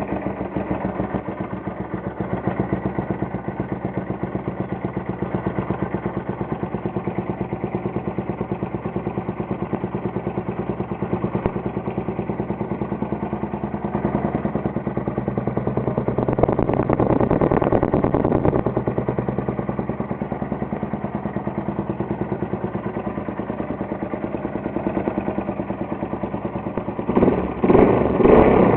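Yamaha XT 225's single-cylinder four-stroke engine idling with an even beat through a Roncar Coyote RS aluminium aftermarket exhaust. The idle rises a little around the middle, and the engine revs up sharply near the end.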